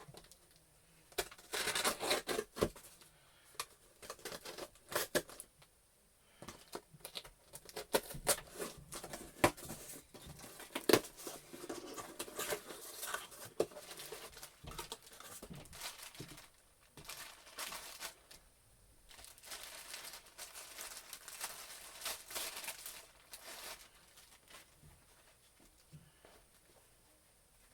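A mailed box being opened by hand: packaging tearing and crinkling in irregular bursts, with sharp clicks and rustles between them, dying down near the end.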